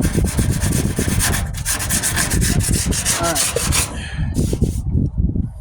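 Hardened Bondo body filler on a truck's sheet-metal wheel arch being worked by hand, rapid, even back-and-forth abrasive strokes that stop about four seconds in.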